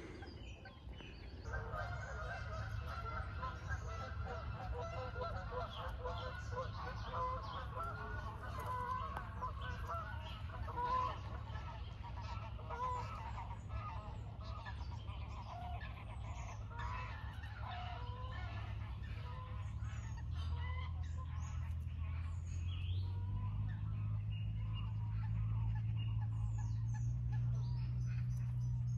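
A flock of geese honking, many calls overlapping, dying away about halfway through, with small birds chirping. Under it a steady low hum that rises in pitch in a few steps during the second half.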